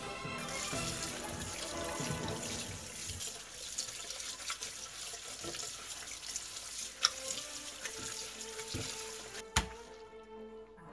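Tap water running and splashing into a colander in a stainless steel sink as boiled instant noodles are drained and rinsed by hand, over background music. Two sharp knocks about seven and nine and a half seconds in, the second the loudest, and the water stops just before the end.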